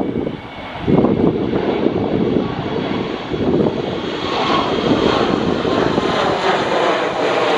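Jet engines of a Tigerair Taiwan Airbus A320-family airliner passing low overhead: a continuous rumble and roar. It grows fuller and higher-pitched from about halfway through as the aircraft comes over.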